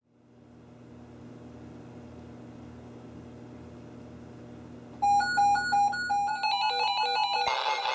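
Static hiss and a low hum from NOAA weather radio receivers as the station's signal comes up. About five seconds in, several of the radios start their alert alarms: repeating beeps at different pitches that overlap, with more joining in near the end, signalling an incoming warning.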